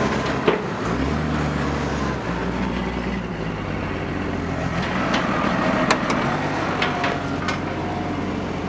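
Timberjack 450C skidder's diesel engine running, heard from inside the cab, while dragging poplar logs. A few sharp knocks sound over it, about half a second in and three times between six and seven and a half seconds.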